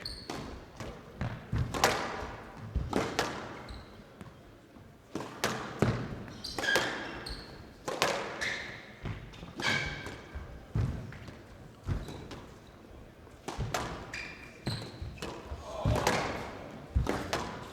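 Squash rally: sharp racket strikes and the ball smacking the walls at an irregular pace, with shoes squeaking on the court floor between shots.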